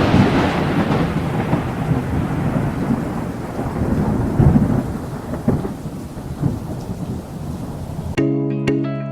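A thunderclap followed by a long rolling rumble that slowly fades. About eight seconds in it cuts to music with bell-like mallet notes.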